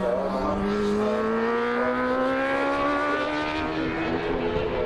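Superbike racing motorcycles at full throttle, one engine's pitch climbing steadily for about four seconds as it accelerates.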